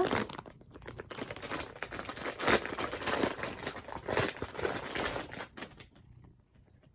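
Plastic packaging crinkling and rustling as it is handled and a squishy toy is taken out of it, dying away about six seconds in.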